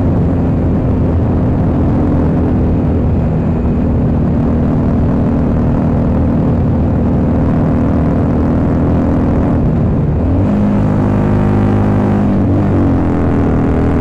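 Harley-Davidson Sportster 883 Iron's air-cooled V-twin, breathing through Cobra slip-on exhausts, running steadily under way at road speed. About ten seconds in the engine note drops as the revs fall, then rises again near the end.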